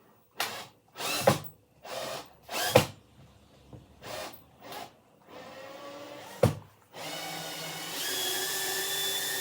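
Power drill driving at a screw in a wooden chair frame in a series of short bursts, then running continuously for the last couple of seconds.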